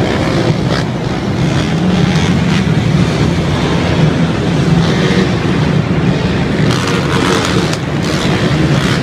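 Several ATV (quad bike) engines racing around a dirt track, the engine note rising and falling as the riders rev through the course.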